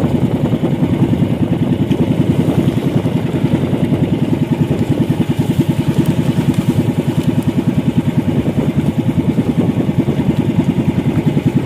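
Outrigger fishing boat's (bangka's) engine running steadily with a rapid, even pulsing beat.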